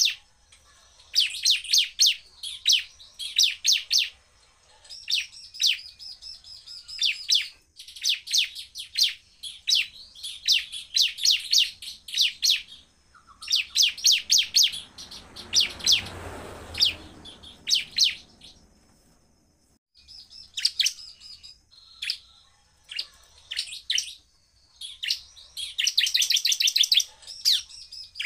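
Bar-winged prinia (ciblek) calling in rapid volleys of sharp, high chip notes, fast repeated runs broken by short pauses. A brief rushing noise rises beneath the calls about halfway through.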